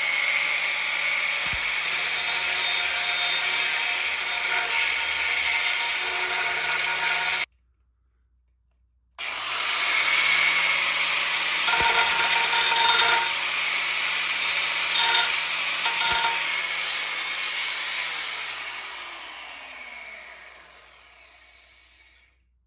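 Angle grinder running at full speed, grinding and cutting metal with a steady high whine. It drops out abruptly for about two seconds, then runs again, and near the end it is switched off and winds down with a falling pitch until it stops.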